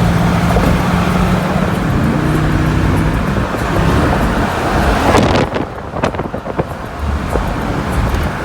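Car engine and road noise in slow city traffic: a steady low hum under a wash of tyre and traffic noise, which drops for a moment a little past halfway.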